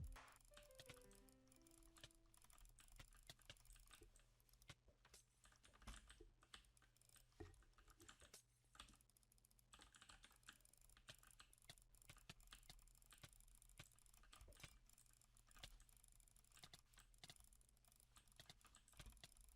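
Logitech G502 gaming mouse buttons clicking, many quick irregular clicks, faint.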